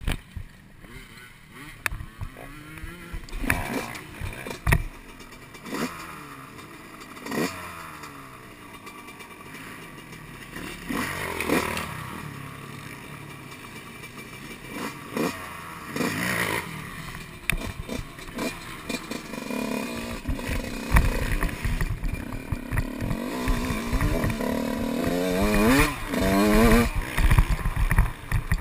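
Motocross dirt bike engines revving, their pitch climbing and falling again and again as the throttle opens and closes. The engines grow louder and closer over the last several seconds, with scattered sharp knocks throughout.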